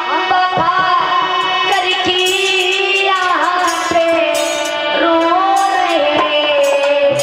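Indian-style music: a gliding, wavering melody line over steady held drone notes, with a few drum strokes.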